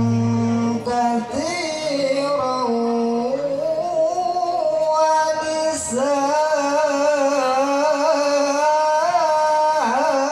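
A male qari recites the Quran in the melodic tilawah style through a microphone. He holds long notes and sings wavering, gliding ornaments that rise and fall. The phrase ends just before the end.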